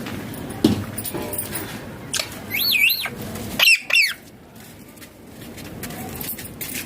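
Indian ringneck parakeet giving two short, warbling calls whose pitch wavers rapidly up and down, near the middle. A few knocks or rustles come before them.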